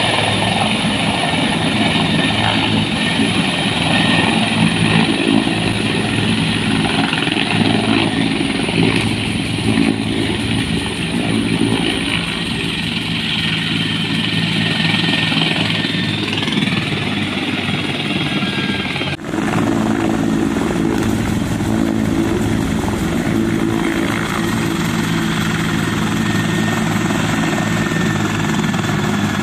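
Helicopter turbine engine and rotor running as the helicopter comes in to land and sits on the ground, with a low rotor drone and a thin, high turbine whine. About 19 s in the sound breaks off sharply and resumes, a cut in the recording.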